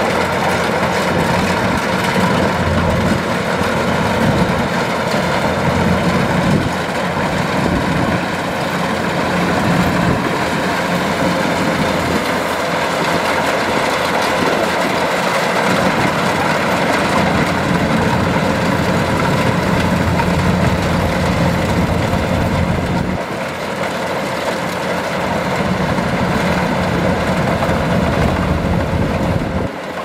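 Kubota DC-105X combine harvester running steadily while cutting rice, its diesel engine and working machinery making a continuous drone. The sound dips slightly about seven seconds in and again at about twenty-three seconds.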